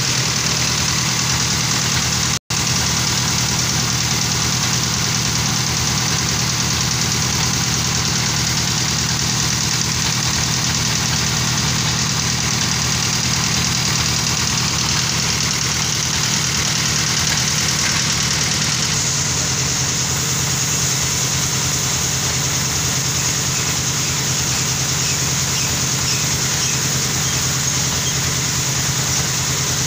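Sawmill machinery running with a steady, loud engine drone. It cuts out for an instant about two and a half seconds in.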